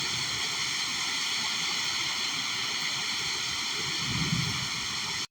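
Heavy rain falling as a steady, even hiss that cuts off suddenly at the end.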